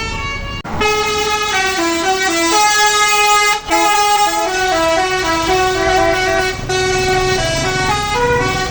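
Basuri tour bus's telolet horn playing a tune: a quick run of stepped notes, some held longer, with a short break about three and a half seconds in.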